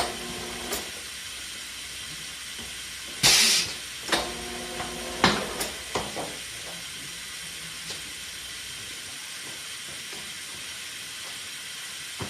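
Pneumatic tire changer at work: a short blast of compressed air hissing about three seconds in, brief stretches of machine hum, and several sharp metal clanks.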